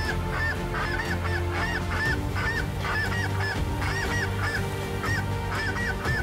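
A flock of snow geese calling in flight: many short, high-pitched honks overlapping, several a second.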